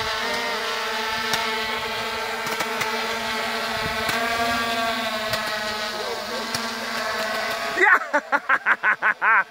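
Hexacopter's electric motors and propellers whining steadily as it hovers, with a few faint pops as the Roman candles mounted on it fire. Near the end a quick run of about nine loud pulses cuts in over the drone.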